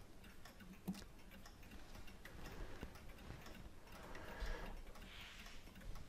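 Faint, scattered light clicks of steel tweezers on the small brass and steel levers of a Hermle chime clock movement as the rack hook is lifted off, with soft handling noise about four seconds in.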